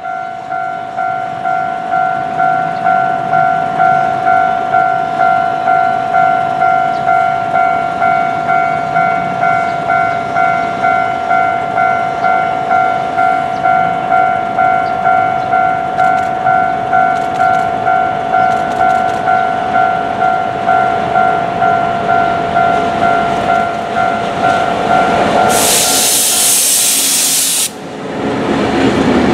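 Level-crossing warning bell ringing in a steady, evenly pulsing pattern as a diesel-hauled train approaches. Near the end the bell gives way to a loud rushing hiss lasting about two seconds as the R100 diesel locomotive draws level, then the engine and the rolling wagons take over.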